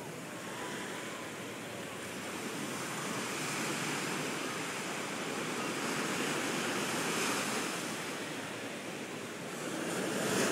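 Ocean surf: waves breaking and washing up the beach in a continuous rush that swells and eases, loudest at the very end.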